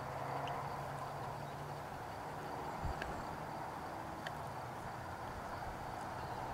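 Faint steady background noise with a thin high tone, broken by a few soft clicks and one dull thump about three seconds in.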